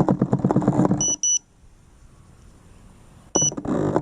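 Short, high electronic beeps from an FPV drone's buzzer: two quick beeps about a second in and another near the end, cutting across a dense, rapidly pulsing noise that stops after the first beeps and comes back after the last.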